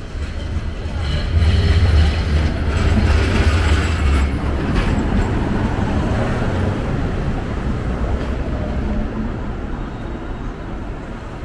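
Street tram running past close by on its rails: a low rumble with a rush of wheel-on-rail noise, loudest a couple of seconds in, then fading as it moves away.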